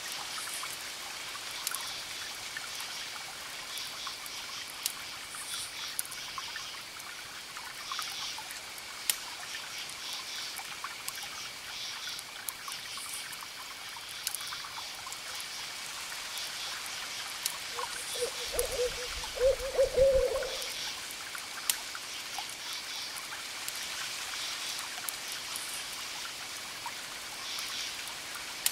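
An owl gives a short series of hoots about two-thirds of the way through. Under it, a wood fire crackles with sharp pops over a steady hiss of trickling water.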